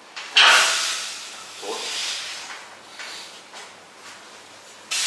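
Forceful hissing breaths out from a lifter straining through barbell bench press reps. A sudden loud hiss comes about half a second in and fades over a second or so, a weaker one follows about two seconds in, and another sudden one starts near the end.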